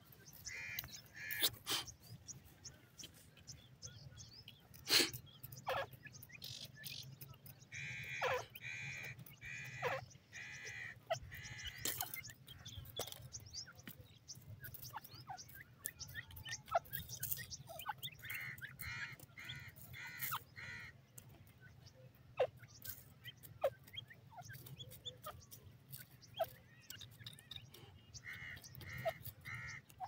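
Grey francolin calling in several short series of evenly spaced, repeated notes. Many small clicks and scrapes of the birds scratching and pecking in dry, pebbly soil run between the calls.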